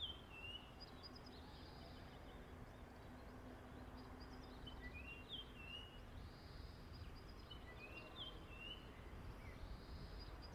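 A small songbird singing a short phrase of quick whistled notes, repeated every few seconds. It is faint, over a low steady background rumble.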